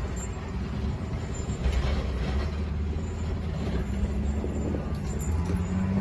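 Diesel engine of a wheel loader with a snow plow blade running under load as it pushes snow, a steady low hum that grows louder about two seconds in and again near the end.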